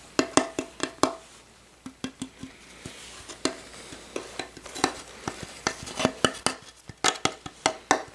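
Sharp tapping on a carved wooden mask, each tap with a short wooden ring. The taps come in quick runs of four or five, with sparser single taps in between.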